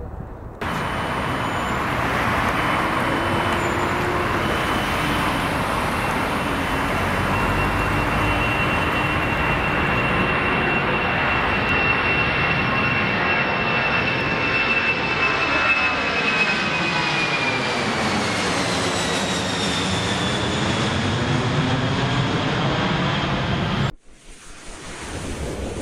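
Boeing 747-400 freighter's four jet engines passing low overhead: a loud, steady jet roar with a high whine that slides down in pitch as the aircraft goes past, about two-thirds of the way through. The roar starts abruptly just after the start and cuts off abruptly near the end.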